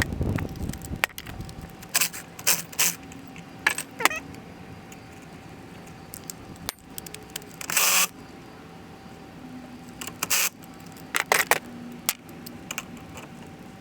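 Scattered metallic clicks and clinks of hand tools and parts being handled on an outboard engine, with a short rasping sound about eight seconds in.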